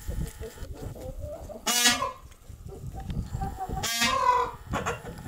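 Giant Brahma chickens calling: two loud, short calls about two seconds apart, with fainter clucking between.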